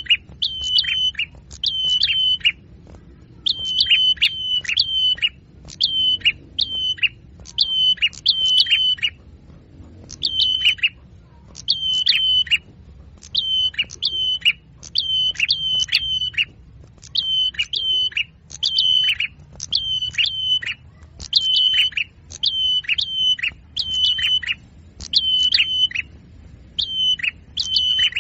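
Recorded small-songbird calls looped as a lure for trapping small birds: short phrases of two to four sharp, high chirps, each dropping quickly at its end, repeated at an even pace about every second and a half.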